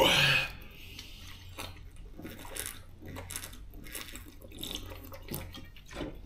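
Drinking from a large plastic soft-drink bottle: faint, irregular glugs of liquid and swallows.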